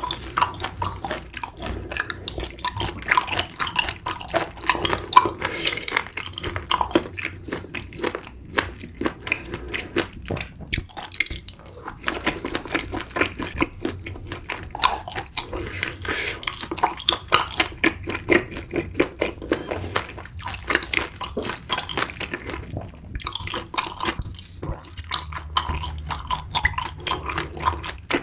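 Close-miked wet chewing and mouth smacking of a person eating, a rapid irregular run of sticky clicks with a few brief pauses.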